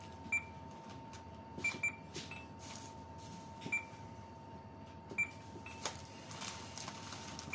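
Self-checkout barcode scanner beeping as grocery items are scanned: short high beeps every second or two, two in quick succession near two seconds in, over a faint steady hum.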